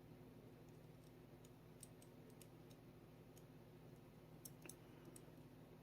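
Near silence with a few faint, scattered small clicks of small pistol parts and tools being handled during disassembly of a Sig Sauer P365 frame.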